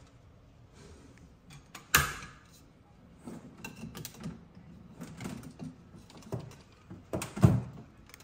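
A series of knocks and clicks from objects being handled: a sharp loud knock about two seconds in, a run of smaller clatters after it, and another loud knock near the end.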